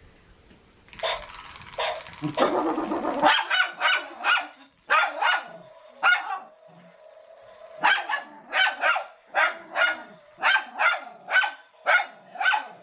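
Miniature schnauzer barking over and over in short, sharp yaps, roughly two a second and unevenly spaced, after a couple of seconds of rough scuffling noise.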